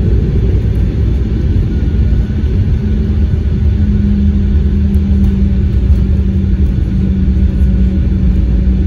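Embraer 190 GE CF34-10E turbofan and airliner rollout heard in the cabin: a loud, steady, deep rumble as the plane slows on the runway after touchdown. The engine's thrust reverser is deployed at first and stowed within the first few seconds. A steady low hum comes up about four seconds in.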